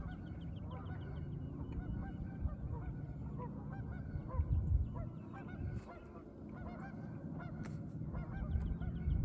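A flock of geese honking continuously, many short overlapping calls at once.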